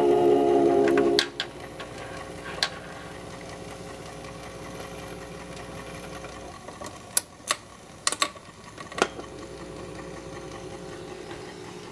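1951 RCA Victor 45-EY-4 record changer running: its AC motor gives a steady hum, louder for about the first second. Scattered clicks and knocks from the changer mechanism come through the rest, clustered around the middle.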